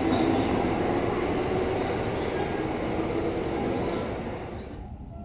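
Kintetsu electric train leaving an underground subway platform and running off into the tunnel. Its rumble fades steadily as it pulls away.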